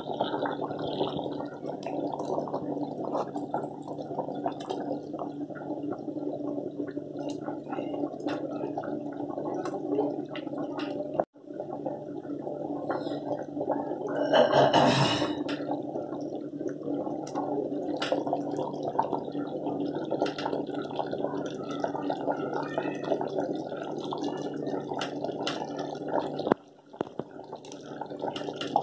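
Thick kaima curry gravy boiling hard in a pot, a steady thick bubbling and popping. A louder splashy burst about halfway through, as a meatball is dropped into the gravy. The bubbling breaks off briefly twice.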